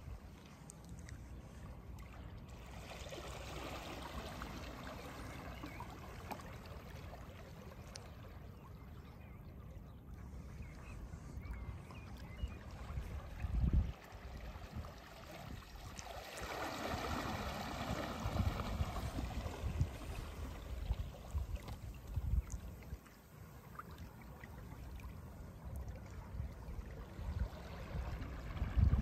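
Water swishing and lapping against hulls gliding through calm water, with a low wind rumble on the microphone. The hiss swells twice, a few seconds in and again around the middle, and there are a couple of short low thumps.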